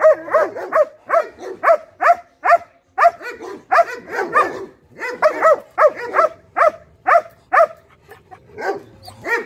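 German shepherd-type dog barking aggressively in a rapid run, about two to three barks a second, with a short pause about eight seconds in.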